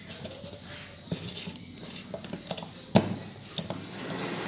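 Small metal parts clicking and tapping as a motorcycle balancer gear, with its springs and rubber damper, is pressed back together by hand, with a sharper metal knock about three seconds in.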